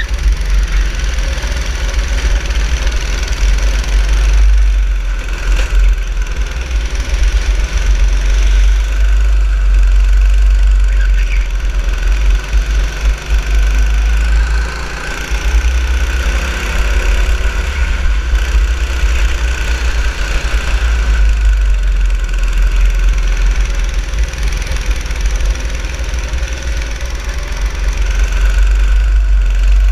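Go-kart engine heard from on board, running continuously, its pitch rising and falling as the kart speeds up on straights and slows into corners, over a heavy low rumble.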